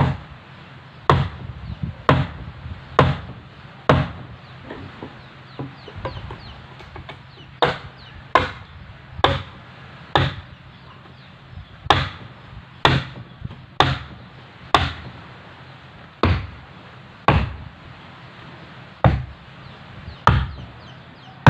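Wooden mallet striking the wooden gunwale of a plywood fishing boat: a series of sharp knocks, about one a second, with a few short pauses between runs.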